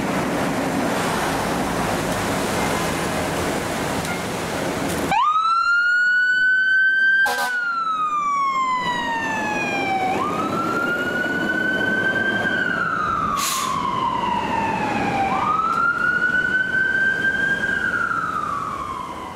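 A fire engine's engine running for about five seconds, then the engine's siren wailing, gliding up and down in slow cycles of about five seconds, three rises and falls, with two brief clicks along the way.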